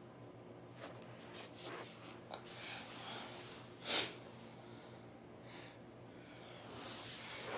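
A person sniffing and breathing through a stuffy nose: several short sniffs, with one sharper, louder sniff about four seconds in. It fits the head cold she says she may be coming down with.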